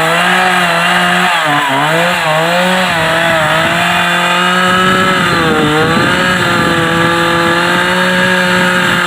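Two-stroke chainsaw running at high revs through downed tree wood. Its pitch sags briefly a couple of times as the engine bogs under the cut, then climbs back.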